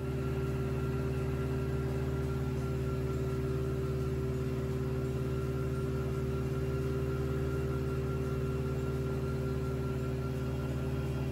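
CGS Hawk ultralight aircraft's engine running steadily in cruising flight, a constant drone that does not change in pitch.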